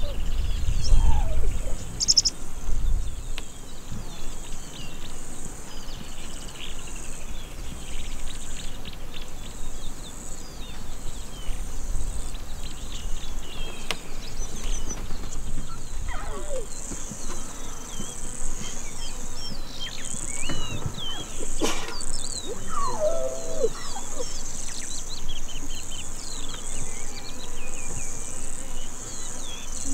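Savanna grassland insects buzzing steadily at a high pitch, with many small bird chirps and twitters over them and a few longer calls. There is a low rumble in the first few seconds.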